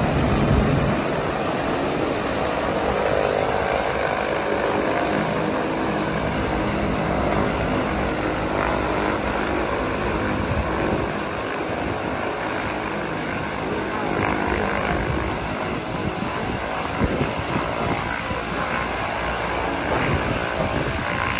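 Engines of a high-wing twin-engine turboprop plane running steadily with the aircraft standing on the ground, a continuous propeller and engine drone with no clear rise or fall.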